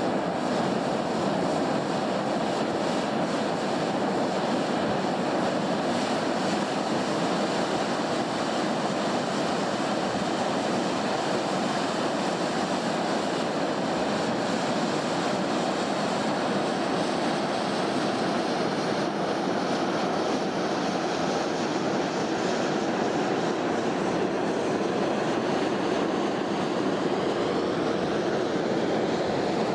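Steam hissing steadily from a volcanic fumarole, an even, unbroken rush of noise.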